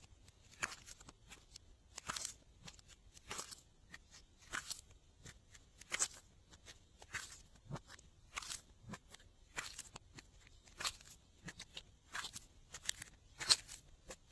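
Glossy slime being worked by hand, giving a run of crisp clicks and pops as air pockets burst, the louder ones coming about once a second.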